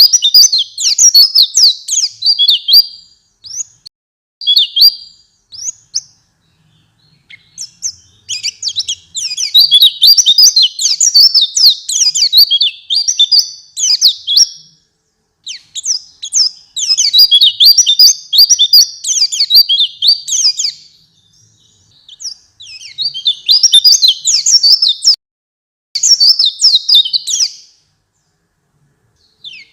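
White-eye (pleci) singing a fast, high twittering song in runs of several seconds with short pauses between them. This is a lure (pancingan) recording meant to set caged white-eyes singing.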